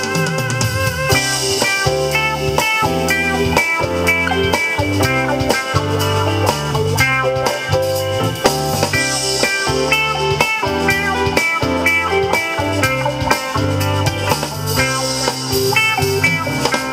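Instrumental passage of a Thai pop song played through a pair of LSM FR112M loudspeakers: a melodic lead line over bass and drums with a steady beat.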